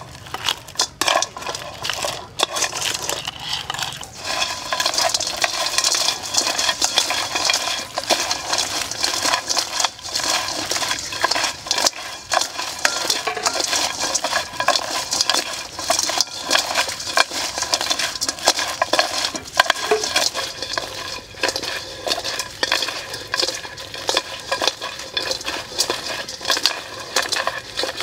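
Raw crabs being tossed and mixed by hand in an enamel pan, their hard shells and claws clattering and scraping against each other and the pan in a continuous stream of small clicks.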